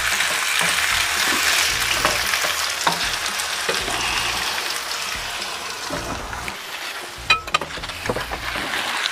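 Pork pieces with onions and freshly added tomato sizzling in oil in a nonstick frying pan, stirred and scraped with a wooden spoon. The sizzle eases a little past the middle, and a few sharp knocks come about seven seconds in.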